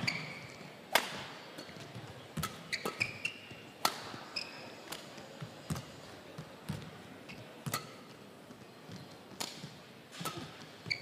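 A badminton rally: rackets strike the shuttlecock in sharp cracks about every one to one and a half seconds. Between the strikes come short, high squeaks of court shoes on the floor.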